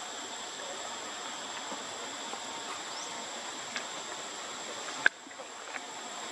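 Outdoor ambience: a steady high insect drone over a soft hiss, with a single sharp click about five seconds in.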